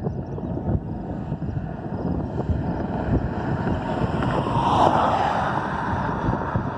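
Strong wind buffeting the microphone, with a louder rush that swells and fades about five seconds in.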